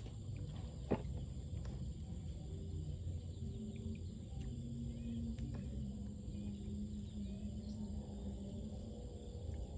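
Outdoor ambience: a steady high-pitched insect drone over a low rumble, with one sharp click about a second in.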